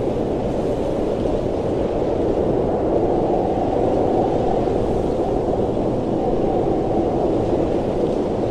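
Steady blizzard wind: a dense, even rushing noise with no breaks.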